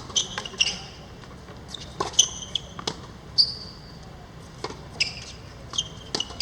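Badminton rally on an indoor court: sharp racket hits on the shuttlecock and short, high shoe squeaks on the court floor, irregularly spaced.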